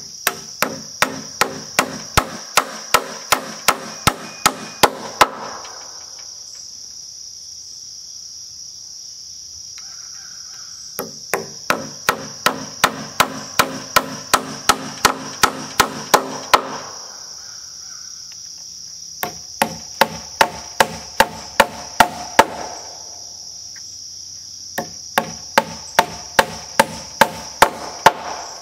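Hammer driving nails through a metal hurricane strap into a wooden rafter: four runs of quick, sharp strikes, about two to three a second, with pauses of a few seconds between runs.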